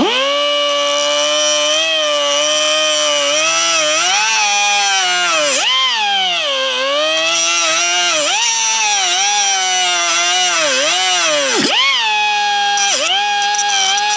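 A high-speed power cutting tool cutting down a door-hinge pin: a steady, loud motor whine whose pitch sags again and again as the tool is pressed into the pin and climbs back as it is eased off.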